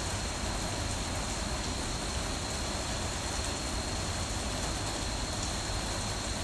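Heavy rain falling steadily in a thunderstorm, an even hiss with no thunder clap, and a faint steady high tone on top.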